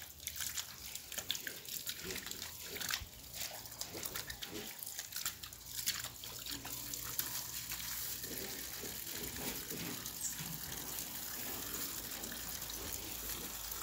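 Water running from a garden hose and splashing over hands as they are washed with soap.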